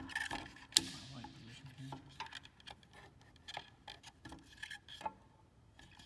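Scattered clicks, taps and rubbing of hands working a cable and parts around a motorcycle's underside, with one sharp knock that rings briefly a little under a second in.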